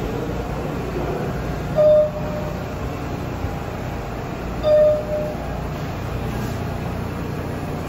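New York subway train noise: a steady low rumble, with two brief steady high tones about three seconds apart, the second one longer.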